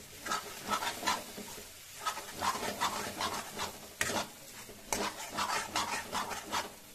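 Spatula scraping the kadhai as it stirs coarsely ground green peas and spice paste frying in hot mustard oil, with a light sizzle. The strokes come two or three a second, with sharper knocks about four and five seconds in.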